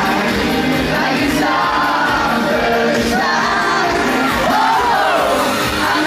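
Live pop music with the audience shouting and singing along loudly.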